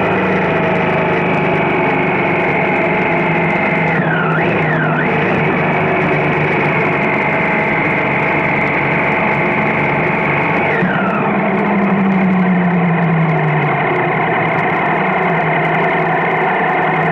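Triumph Street Triple's three-cylinder engine running on the move, with steady road and wind noise. The engine note dips and climbs back sharply twice about four to five seconds in and once near eleven seconds.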